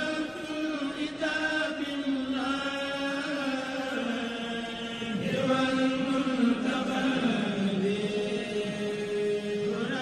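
Vocal chanting used as background music: a voice holding long notes that shift slowly up and down in pitch.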